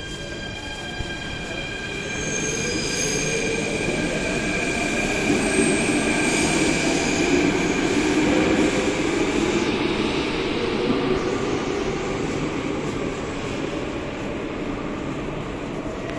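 Athens Metro Line 2 train running along an underground platform: a rumble that builds, peaks about halfway through and then eases off, with steady high whining tones over it.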